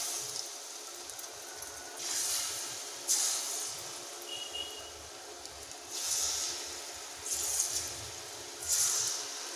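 Rice-flour punugulu batter deep-frying in hot oil: a steady sizzle that flares up loudly five times as fresh balls of batter are dropped in by hand.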